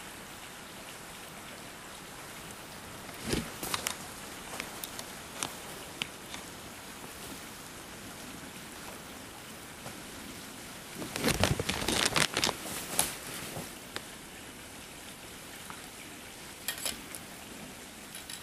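Small creek running steadily, with scattered knocks and splashes as a container is dipped and filled in the fast-moving water. The loudest cluster of splashes and knocks comes about eleven to thirteen seconds in.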